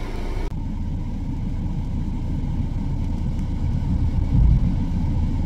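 Wind buffeting a phone's microphone: a steady low rumble that swells loudly about four seconds in.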